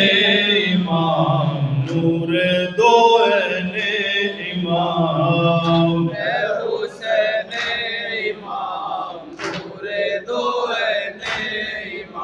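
A noha, an Urdu mourning lament, chanted without instruments by a lead male reciter at a microphone with a chorus of men singing along. In the second half, sharp slaps come at an uneven pace of about one or two a second, consistent with chest-beating (matam).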